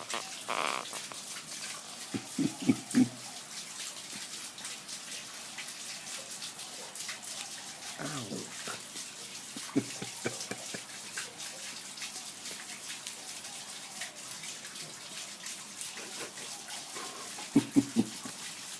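Steady hiss like running water, with a few brief low vocal sounds and scattered clicks.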